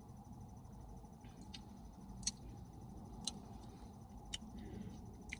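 A few faint, sharp clicks, roughly one a second, over a low steady room hum.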